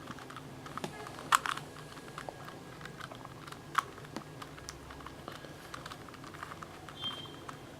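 Plastic 3x3 Rubik's Cube being handled and its layers turned, giving light, irregular clicks with a couple of sharper clacks.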